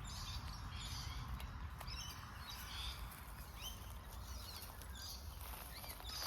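Small birds chirping, a busy run of short, quick notes, over a low steady rumble.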